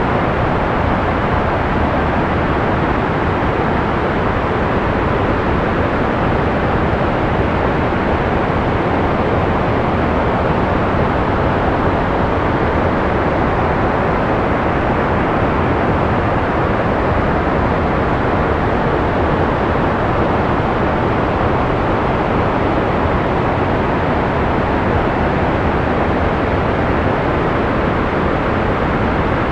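Steady analog white noise for sleep, an even hiss with no changes, its strength in the low and middle range and falling away in the high treble so it sounds soft and dull.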